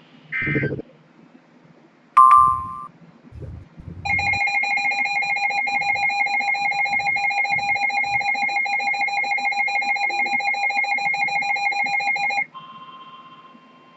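Emergency Alert System tones. A short buzzy data burst and a sharp beep come first, then a loud steady two-tone attention signal holds for about eight seconds and cuts off abruptly, leaving a fainter steady tone.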